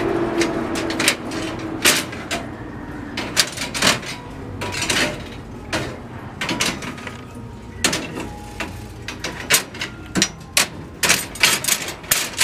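Steel rebar and wire stirrups of a column cage clinking and rattling as they are shifted along the bars and tied: irregular sharp metal clicks that come quicker near the end. A passing vehicle's engine noise fades out in the first few seconds.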